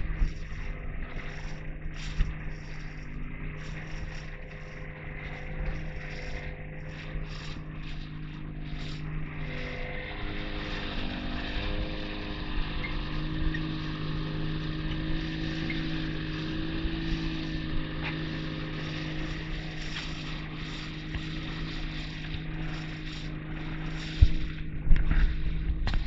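Outboard motor running at speed on a small boat, a steady drone whose pitch shifts slightly about ten seconds in, over the rush of the hull and wake through choppy water. A few loud knocks near the end.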